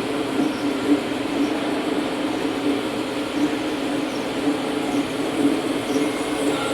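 A motor running steadily with an even, rough hum.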